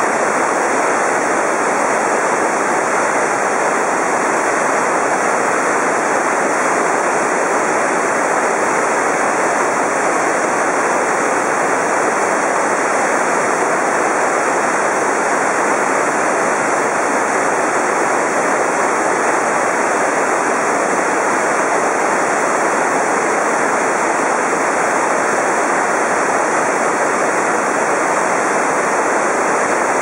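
Multi-tiered waterfall cascading over rock ledges: a steady, unbroken rush of falling water.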